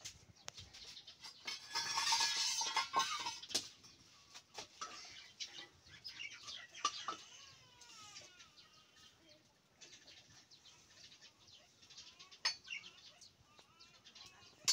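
Sharp clinks and scrapes of a ladle against steel cooking pots. A loud burst of rustling noise about two seconds in, and birds calling in the background around the middle.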